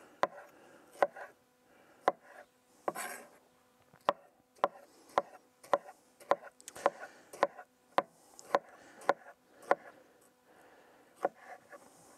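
Chef's knife chopping soft mango flesh on a wooden cutting board: sharp knocks of the blade on the board, spaced unevenly at first, then settling into a steady rhythm of about two a second.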